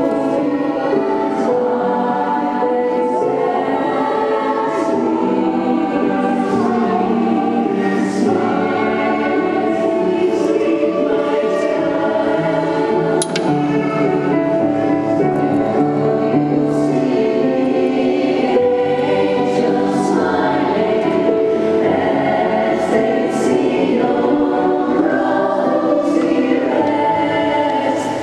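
A women's choir singing in close harmony, several parts held together, accompanied by a Roland digital stage piano. The singers' 's' sounds land together crisply every few seconds.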